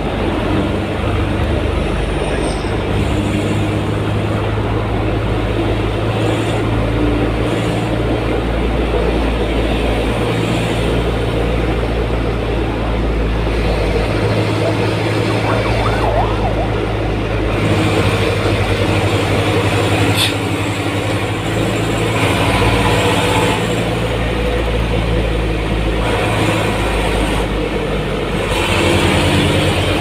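Steady engine and tyre-on-road noise heard from inside a vehicle's cabin while driving on an expressway, a constant low hum under road rumble.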